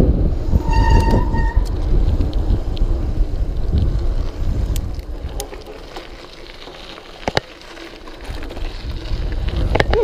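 Wind buffeting the microphone and mountain-bike tyres rumbling over the track, with a short squeal about a second in and a few sharp clicks and rattles. The rumble drops away in the middle and builds again near the end.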